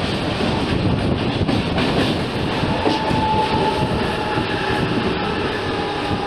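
Mumbai suburban electric local train running on the rails, heard from its open doorway: a steady rumble of wheels and rail noise with a faint steady whine.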